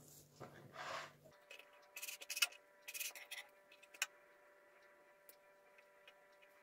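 Kitchen knife working a salmon fillet on a wooden cutting board: a few short scrapes and cuts, with a sharp tap about four seconds in.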